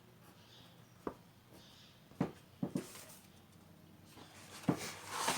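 A few light clicks, then paper rustling near the end as a book page is turned.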